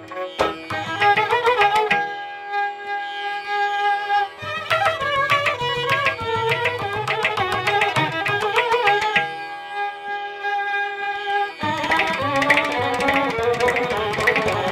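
Background music in an Indian classical style: an ornamented, wavering melody line over hand-drum strokes. The drums drop out briefly past the middle, then come back fuller.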